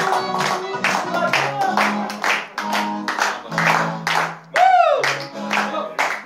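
A man singing into a microphone over backing music, with hand clapping in a steady rhythm. About four and a half seconds in, a brief loud swooping tone cuts across the music.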